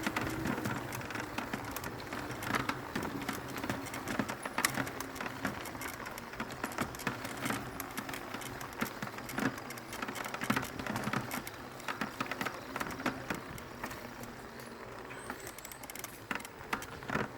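Mountain bike clattering over a rough trail on a downhill run, with dense, irregular rattles and knocks.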